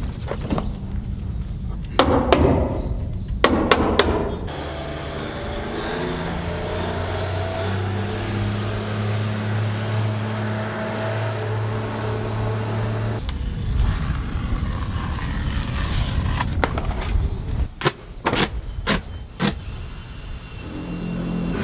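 Sharp knocks and clicks of hand work on a building wall, several at a time, near the start and again for the last several seconds. In between, a steady engine hum runs, stepping up in pitch once or twice before it cuts off.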